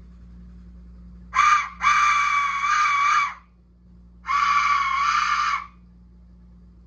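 Aztec death whistle blown in three blasts, a harsh scream-like shriek: a short one about a second and a half in, then two longer ones of about a second and a half each.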